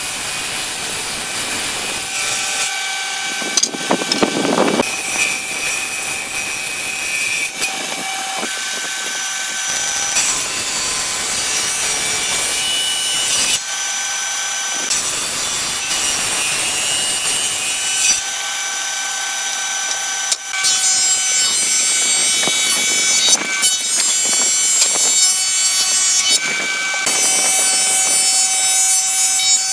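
Table saw running with a steady whine and ripping lengthwise through softwood boards, in a series of cuts joined one after another. Near the end a thickness planer runs, feeding a board through its cutter head.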